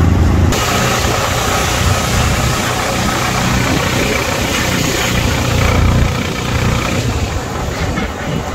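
Motorcycle engine running under the rider, with road and traffic noise as the bike moves through town. About half a second in, a low steady hum switches abruptly to a brighter mix of engine and road noise.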